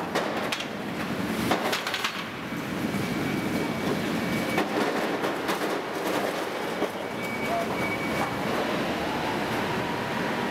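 Machinery running with a steady rattling rumble, with a few sharp clicks in the first two seconds.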